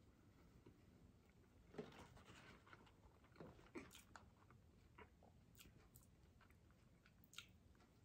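Faint chewing and mouth sounds of a person eating a hamburger, with a few scattered sharp clicks.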